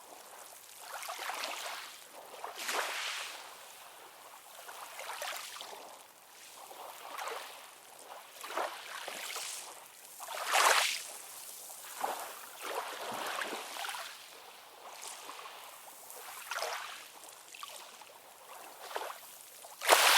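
Ocean waves washing in, an uneven hiss that swells and falls every second or two, with one stronger surge about halfway through. The sound is thin, with little deep rumble beneath it.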